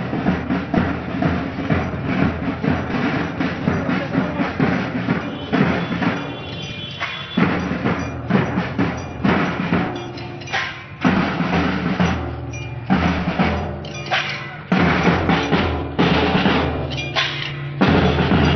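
Marching drum band: bass and snare drums beating a steady rhythm, with some held notes from other instruments.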